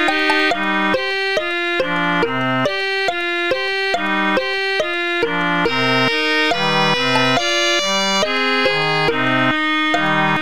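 Instrumental background music: a melody of quick, even notes, several a second, over a recurring bass note.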